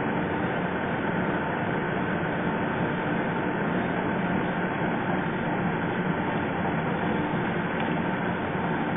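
Lathe running steadily, an even machine hum with a faint steady tone, while a diamond knurling tool is fed slowly along the turning workpiece.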